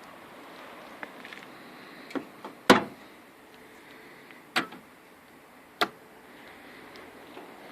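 A few sharp clunks and clicks from handling a car's body, the loudest about three seconds in and two more near the middle, over a steady low hiss.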